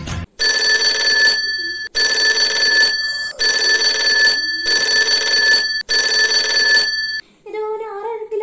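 Alarm clock ringing with a steady electronic ring tone, about five long rings separated by short breaks; it stops about seven seconds in.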